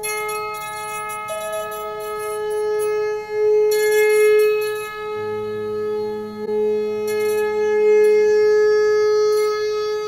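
Electrified zither played through effects as an ambient drone: long held, steady tones ringing with many overtones, with bright shimmering flurries of high notes about half a second, four seconds and seven seconds in, and a lower hum joining about five seconds in.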